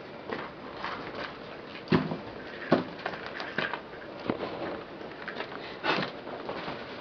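Shoes stepping and scuffing on gritty dirt ground: a few irregular taps and scrapes over a steady background hiss.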